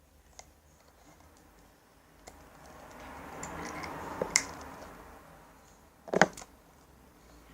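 Light plastic clicks and handling noise from a glue bottle being worked over a mixing container, with two sharp knocks about four and six seconds in, the second the loudest.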